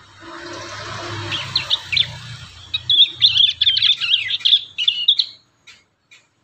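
Young prinias (prenjak) practising their song: a few scattered notes over a hiss, then about two and a half seconds of rapid, loud, high twittering, followed by a few short separate calls.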